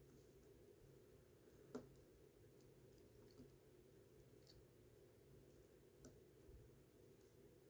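Near silence with a few faint sharp clicks of a small metal tool against a wristwatch's case and movement while the watch is being reassembled. The loudest click comes about two seconds in, another about six seconds in.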